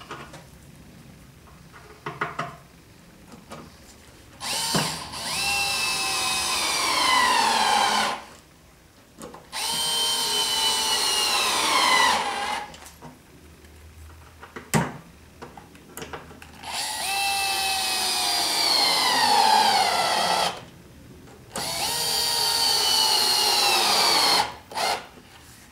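Cordless drill running four times in bursts of a few seconds, working into the wood of a chestnut chest frame. In each run the motor's whine falls in pitch as it comes under load in the wood. Short clicks and knocks come between the runs.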